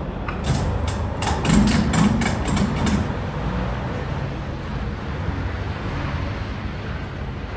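A cargo strap's ratchet buckle being worked to tighten a strap across pallets: a quick run of about ten metallic clicks, roughly four a second, stopping about three seconds in. A steady low rumble runs underneath.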